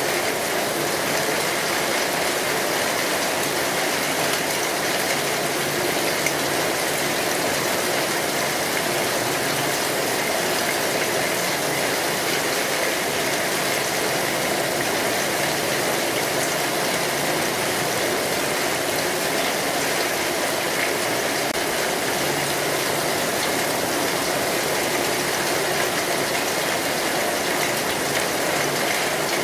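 Steady rain falling on a street: an even, unbroken hiss.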